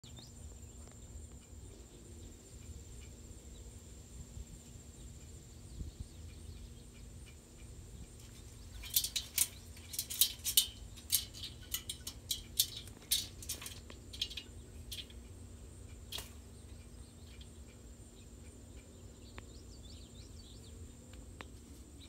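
Umbrella cockatoo rousing, shaking out its raised feathers: a run of about a dozen quick, dry rustles in the middle, over a faint steady high tone.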